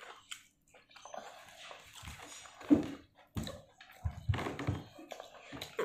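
Eating by hand at a table: chewing and fingers working rice and curry on a metal plate, with scattered taps and a few louder knocks.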